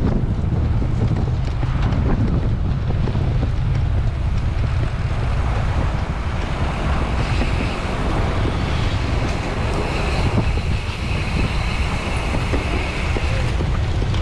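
Wind rushing over an onboard camera's microphone on a bicycle at race speed, a loud steady low rumble. A faint higher whir joins it from about halfway through until near the end.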